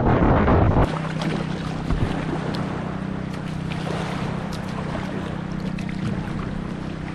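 Wind buffeting the microphone for about the first second, then an abrupt change to small water splashes and lapping, with scattered ticks over a steady low hum.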